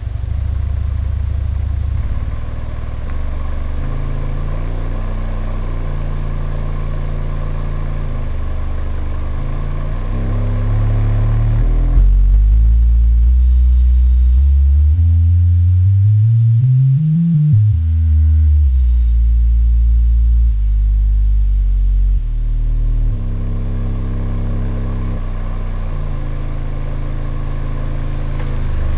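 Homemade Radiotehnika subwoofer playing deep bass notes that step from pitch to pitch every second or two. Around the middle a low tone glides up and then back down.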